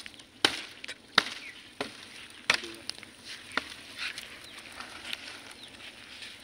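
Fire of dry palm fronds burning, with sharp cracks and pops, several in the first few seconds, then fewer and fainter.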